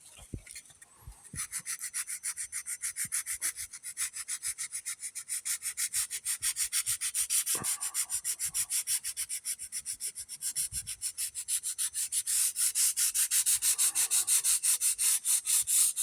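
Sandpaper worked back and forth by hand, without a block, over the fiberglass boat's gelcoat, in quick even strokes about three to four a second, growing louder near the end. The surface is being scuffed so the new sprayed gelcoat will stick.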